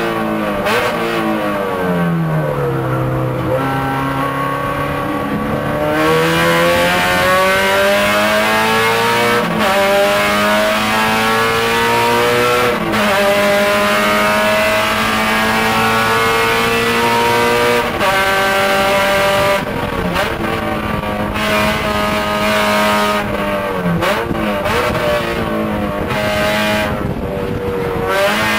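K24A2 four-cylinder engine of a 1999 Honda Civic Si race car, heard from inside the cabin and revving hard. Its pitch falls near the start, then climbs and drops sharply again and again as it shifts gears.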